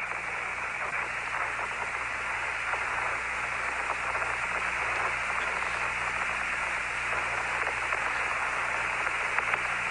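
Steady radio static hiss on the Apollo lunar surface-to-Earth voice link between transmissions, with a low hum beneath.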